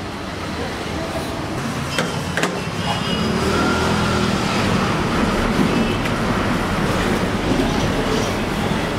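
Street traffic noise: a steady rumble of passing road vehicles, with two sharp clicks about two seconds in.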